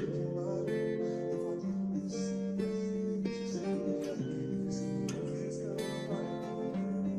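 Background music: acoustic guitar playing chords, with the chords changing every second or so.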